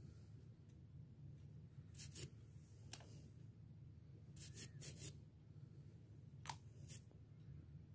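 Faint, sharp clicks of a small metal nail tool snipping and scraping at the edge of an ingrown big toenail, about nine in small groups, over a faint low hum.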